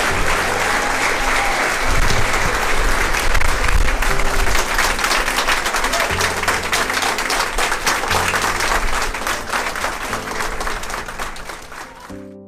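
A crowd of people clapping steadily, with instrumental music underneath; the applause fades out near the end.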